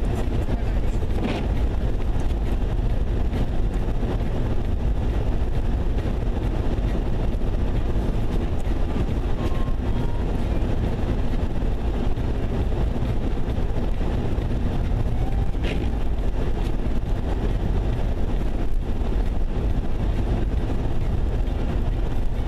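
Steady low rumble of a vehicle's engine and tyres heard from inside the moving cab while driving on the highway, with a couple of faint brief clicks.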